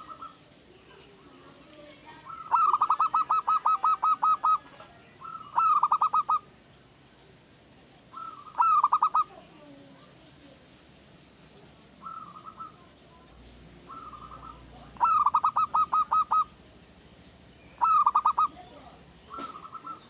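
Male zebra dove (perkutut) cooing: repeated phrases of rapid staccato notes, about six a second. Two long phrases are mixed with several shorter and fainter ones.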